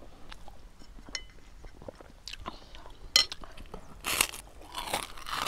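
Crunchy biting and chewing of a crisp fried cracker, with small crackles at first and the loudest crunches about four seconds in, then again about a second later.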